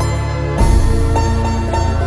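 Instrumental background music: a melody of short held notes over a sustained bass, with a heavier beat coming in about half a second in.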